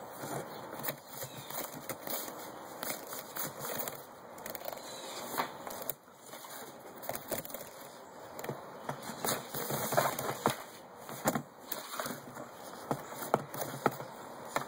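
Nylon paracord rustling and crackling as the outer chain-sinnet layer of a bracelet is pulled loose, with many quick small clicks and scrapes of cord sliding out through its loops.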